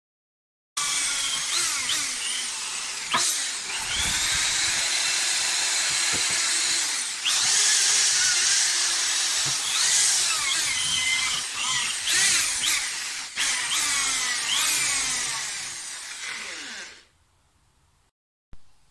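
Corded electric drill spinning a small grinding bit against wood, its motor whine dipping and recovering in pitch as the bit bites into a knot. It starts just under a second in and winds down to a stop near the end.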